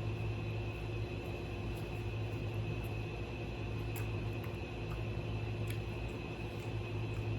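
Steady low hum of room noise, with a few faint clicks about four and six seconds in.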